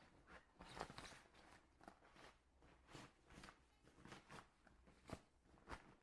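Faint, irregular rustles and light knocks of handling, about a dozen short noises spread unevenly through the stretch.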